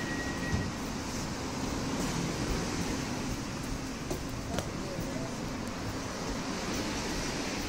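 Steady running noise inside the carriage of an EG2Tv Ivolga electric train, with two light clicks a little past the middle.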